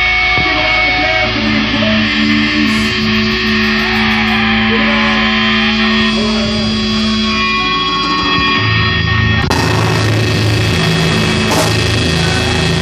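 Live rock band playing, electric guitars and bass holding sustained notes, with the drums and cymbals coming in about three-quarters of the way through. Poor-quality amateur recording of the band.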